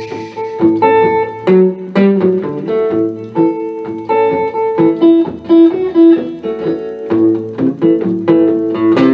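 Live blues song in an instrumental break with no singing: a guitar picks a run of short, quick notes.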